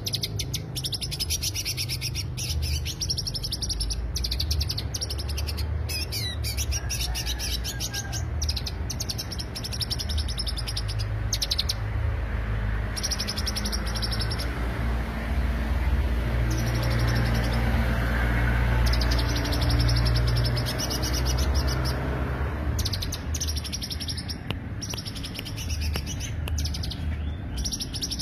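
Greater green leafbird (cucak hijau) singing a fast, high, chattering stream of notes in long bouts, breaking off briefly a few times in the middle, over a steady low rumble.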